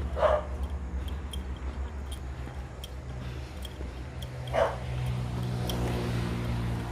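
A dog barking, once just after the start and once more about four and a half seconds in, over a steady low rumble. A low hum builds near the end.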